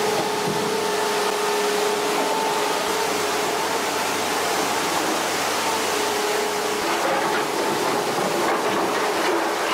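Very large excavator running: a steady, loud mechanical noise with a constant whine over it.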